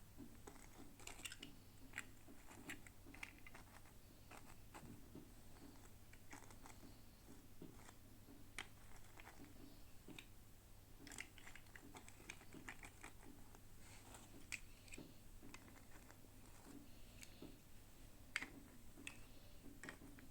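Faint, irregular small clicks and taps of hands handling small plastic toy pieces and packaging while unboxing miniature dolls, over a low steady hum.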